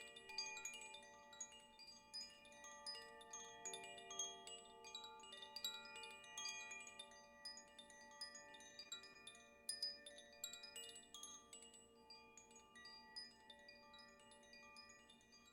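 Chimes tinkling in a continuous shower of quick, light strikes over several sustained ringing tones, faint, easing a little toward the end.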